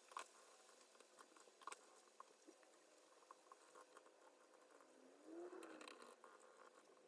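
Near silence, with faint scattered clicks of laptop keys and trackpad.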